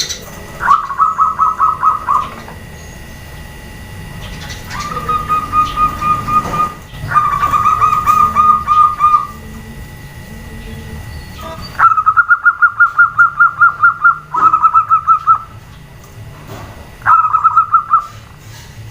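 Zebra doves (perkutut) cooing: six bouts of quick staccato notes, about five or six a second, each bout lasting one to two and a half seconds with short pauses between, one bout following close on another near the middle.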